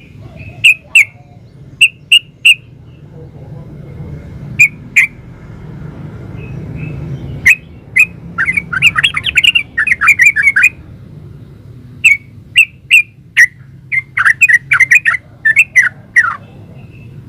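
Yellow-vented bulbul calling with short, sharp chirps. It breaks into a fast chattering run about eight seconds in and another cluster of chirps near the end, over a faint low hum.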